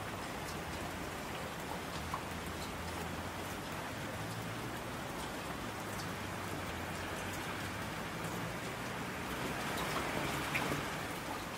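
Steady rain falling, with scattered ticks of single drops and a slight swell in intensity near the end.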